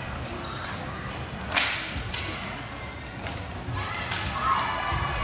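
Inline roller hockey play: sticks and the puck clacking on the sport-court floor, with one sharp crack about one and a half seconds in.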